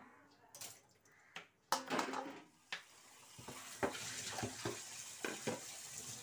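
A few scattered knocks and clatters, then from about three seconds in a kitchen tap running steadily into a steel sink as cut potatoes in a plastic basket are rinsed under it, with light knocks of plastic and hands against the stream.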